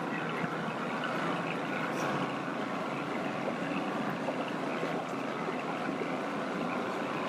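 Motorboat engine running steadily as the boat moves across the water, with the rush of water and air around it.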